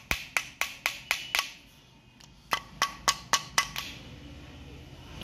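The aluminium valve block of a dual-channel ABS hydraulic unit is knocked lightly and gently in two runs of about six quick taps, with a short pause between them. The tapping is meant to free the front-brake valve inside, which has locked after being soaked with WD-40.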